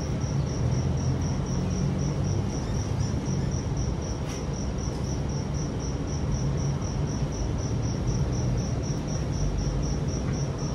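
An insect chirping steadily: a high, even pulsing note about three times a second, over a low background rumble.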